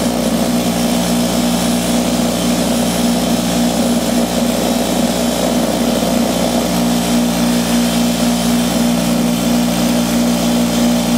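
Wire wheel running steadily while a rusty, sticking brake caliper slide pin is scoured clean on it: a steady motor hum under a scratchy brushing noise.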